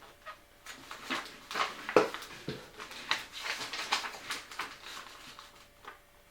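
Paper instruction booklet being handled and its pages turned: a run of irregular rustles and soft taps, the sharpest about two seconds in.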